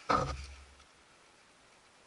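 A single sharp knock with a short low rumble that dies away within about a second, as the wooden workbench is bumped.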